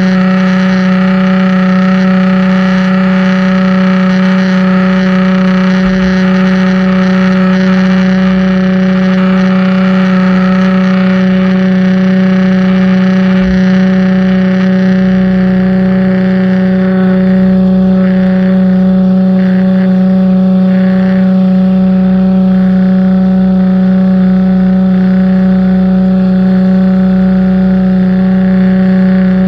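Pressure washer running steadily under load: a loud, unchanging hum with a hiss of water spray that shifts a little partway through.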